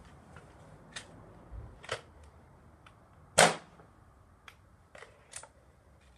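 Remington Tyrant .22 break-barrel air rifle being handled and readied: one loud, sharp crack about three and a half seconds in, with lighter clicks and knocks before and after it.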